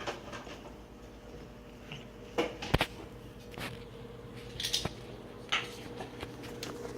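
Scattered light knocks, clicks and handling noises, a few a second apart, over a faint steady hum.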